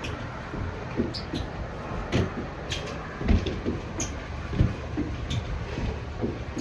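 Repeated knee and elbow strikes thudding into a BOSU Elite balance ball braced against a door: a string of dull, uneven hits, about one every half second to second, some with a sharp knock on top.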